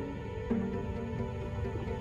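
Background music: sustained chords held over a low bed, changing to a new chord about half a second in.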